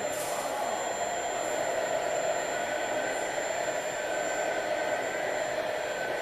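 Radio-controlled model excavator at work, its motors whirring steadily with a whining tone that wavers as the arm moves.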